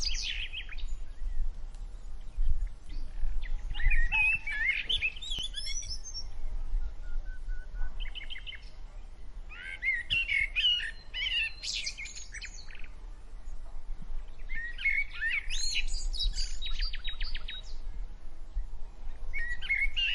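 Songbirds singing outdoors: separate phrases of warbling notes and rapid trills every few seconds, over a steady low rumble.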